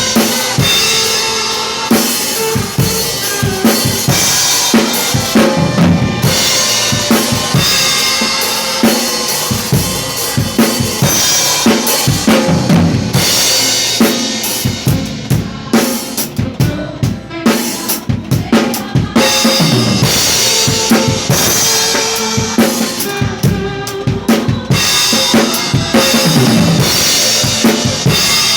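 A drum kit plays a steady groove along to a recorded gospel song. Kick drum, snare and cymbals are heard over the song's backing music, with held tones running underneath.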